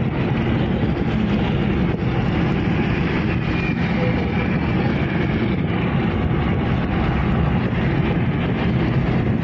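Steady road and engine noise inside the cabin of a car moving at highway speed.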